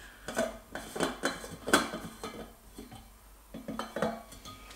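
Lid of a 700 ml Stanley stainless-steel vacuum food jar being unscrewed and lifted off: a run of sharp metallic clicks and clinks, the loudest a little under two seconds in.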